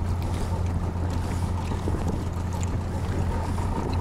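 Small low-horsepower outboard motor running steadily as a low hum, with wind noise on the microphone.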